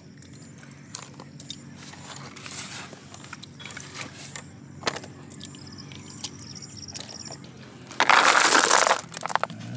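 Stiff palmyra leaves being folded and handled, with light crackles and small clicks. About eight seconds in, a loud rattling rush for about a second as a heap of cooked snails in their shells is tipped from a pot onto a palmyra leaf.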